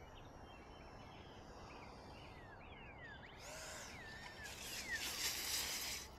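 Small birds chirping over a faint outdoor background. About four and a half seconds in comes a rustling hiss lasting about a second and a half, as the foam RC plane touches down and skids through the grass.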